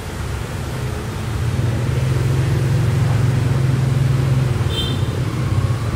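Street traffic: motorbike and van engines going past, a low engine rumble that swells in the middle and eases off, with a short high beep about five seconds in.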